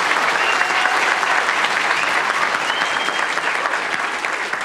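Audience applauding, dense and steady, easing off slightly near the end.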